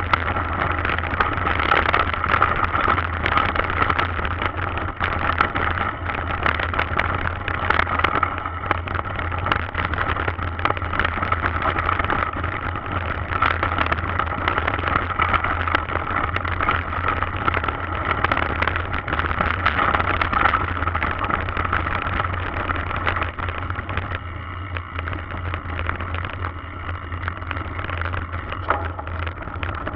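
Mountain bike rolling fast downhill over a loose, stony dirt track: a continuous clatter and rattle of tyres and bike on the rocks over a steady low rumble on the camera microphone, easing a little near the end.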